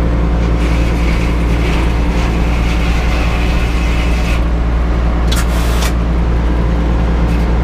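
An engine running steadily at an even speed, with a regular low pulsing. A brief high hiss comes through about five seconds in.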